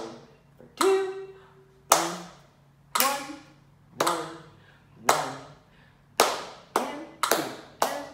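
Hand claps at a steady tempo of 60 beats per minute: one clap a second, then two claps a second from about six seconds in, as the rhythm moves to faster notes.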